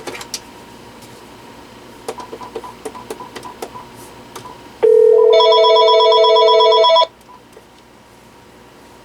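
A quick run of about a dozen short button ticks, then a Panasonic DECT 6.0 cordless phone ringing loudly for about two seconds and cutting off abruptly.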